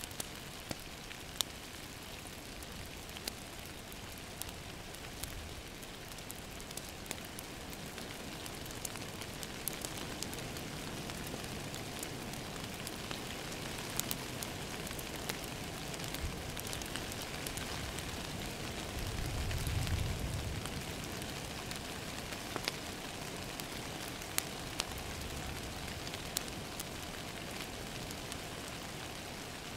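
Steady rain falling on a window pane, with a wood fire crackling in scattered sharp pops. A brief low rumble comes about two-thirds of the way through.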